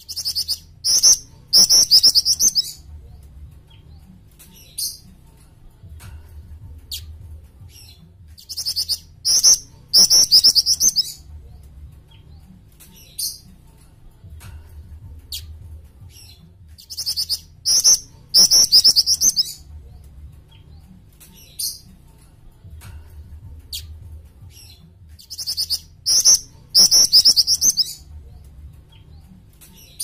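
Jing-jing (a Hemipus flycatcher-shrike) singing. A phrase of rapid, high trilled notes comes four times, about every eight seconds, with single short high notes between phrases.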